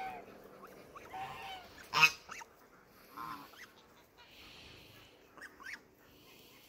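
Domestic geese honking: a handful of short calls spread about a second apart, the loudest about two seconds in, with fainter, higher calls later on.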